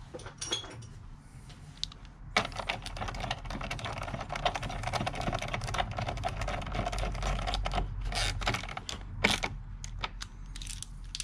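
Hand ratchet clicking rapidly as it runs in the battery hold-down clamp bolt: a continuous run of fast clicks from about two seconds in until about eight seconds, then a short burst near the end.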